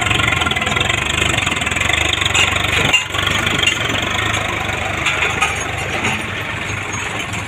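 Swaraj 744 FE tractor's three-cylinder diesel engine running steadily under load as it pulls an overloaded trolley of earth, the sound briefly dipping about three seconds in.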